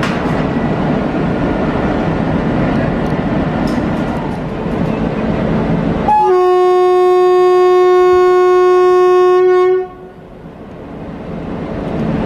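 Indian Railways WAP-7 electric locomotive at a standstill with a steady noisy hum. About six seconds in it sounds one long horn blast of nearly four seconds, starting with a brief higher note, as a departure signal before the passenger train pulls out.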